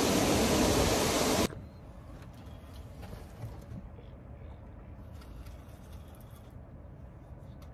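A loud, steady rushing hiss that cuts off suddenly about a second and a half in, leaving only a faint low rumble.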